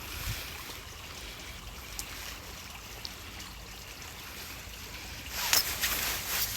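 Water trickling steadily, with a few faint clicks and a brief louder rustle about five and a half seconds in.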